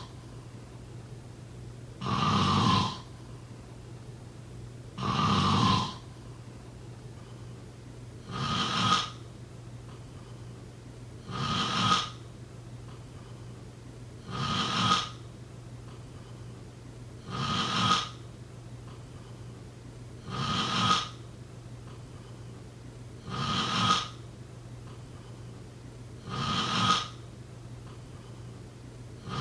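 Snoring in a slow, even rhythm, one snore about every three seconds, over a steady low hum.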